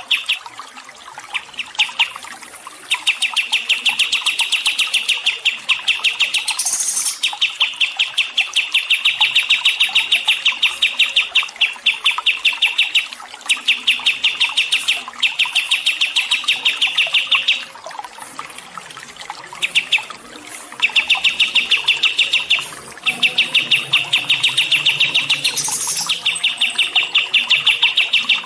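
A songbird singing long runs of rapid, evenly repeated high notes, broken by short pauses. It is a tutor-song recording of the kind played to train or calm cage birds.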